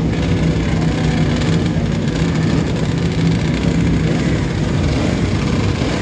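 Classic racing motorcycle engines running steadily on the start line, a loud continuous engine note.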